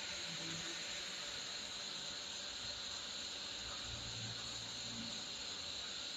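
Steady hiss from an open studio microphone and broadcast line with nobody speaking, with a faint low hum that comes up briefly about four seconds in.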